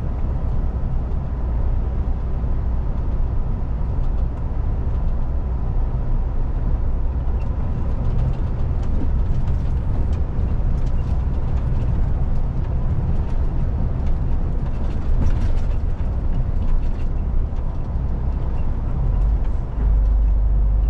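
MAN TGX semi truck on the move: a steady low diesel drone with road noise, with light irregular rattles and ticks through the middle. The low rumble steps up a little near the end.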